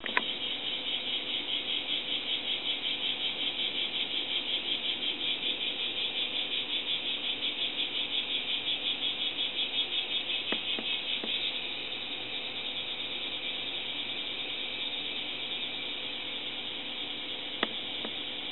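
Cicadas buzzing in a dense high chorus that pulses about four times a second, then settles to a steadier, slightly quieter drone about two-thirds of the way in. Under it runs a faint steady hum, with a couple of soft clicks, the sharpest near the end.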